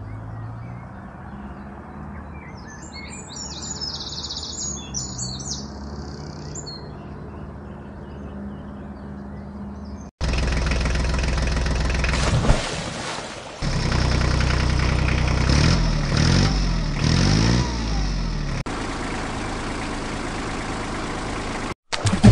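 Birds chirping over a low steady hum, then after a sudden cut a much louder engine, its pitch rising and falling several times as it revs, that breaks off briefly near the end.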